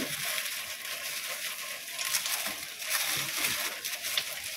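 Thin plastic packaging rustling and crinkling as a mailer parcel and its clear inner bag are opened and handled by hand, with irregular sharper crackles.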